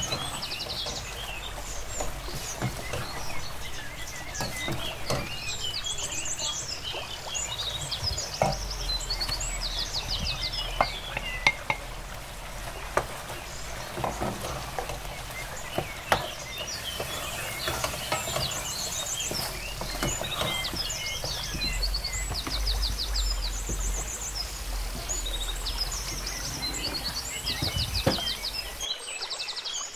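A wooden spoon stirring and scraping grated carrots cooking in an aluminium pot, with irregular knocks of the spoon against the pot. Birds chirp and trill throughout.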